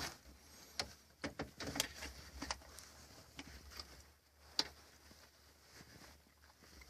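Faint, scattered small clicks and taps, about a dozen at irregular intervals: plastic parts and connectors being handled as a car's door-lock and chime control module is held and turned over.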